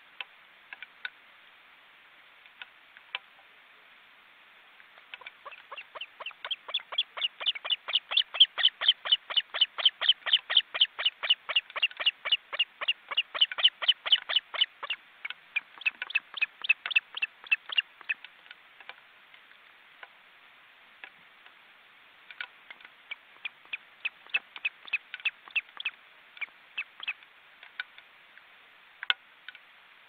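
Osprey calling: a long series of short, high chirps, about three or four a second, growing louder and then fading out; after a short pause, a sparser run of the same chirps.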